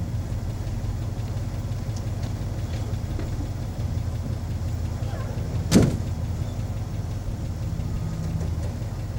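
A vehicle engine idling with a steady low hum, and one sharp knock about six seconds in.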